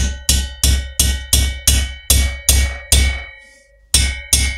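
Hammer blows on a drift, about three a second, driving a chilled rocker spindle into the heated aluminium cylinder head of a Norton Commando 850 engine; each blow rings briefly. The tapping stops for under a second near the end, then starts again.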